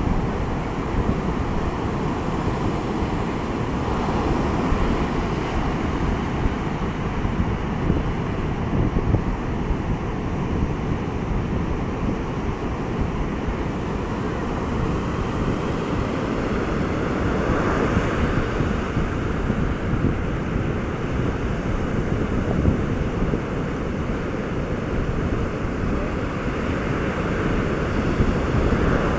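Atlantic surf breaking and washing up a sandy beach at spring-tide high water, a steady rush that swells now and then as waves wash in, with wind buffeting the microphone.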